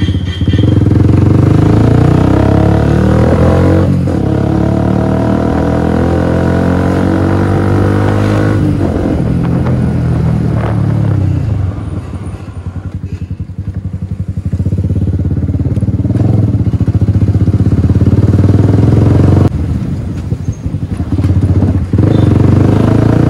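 Yamaha R15 V3's 155 cc single-cylinder engine running as the bike is ridden: its note climbs in pitch about four to eight seconds in, falls away around nine to eleven seconds, runs quieter for a few seconds, then picks up again with two short dips near the end.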